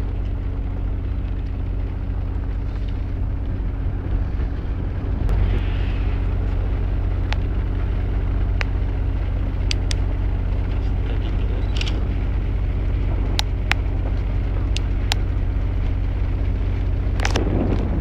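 A boat's engine running steadily, a loud low drone heard on board, with a few scattered sharp clicks.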